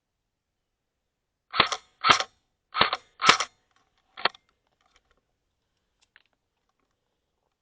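Airsoft gun firing five short bursts of two or three shots each, over about three seconds, then falling silent.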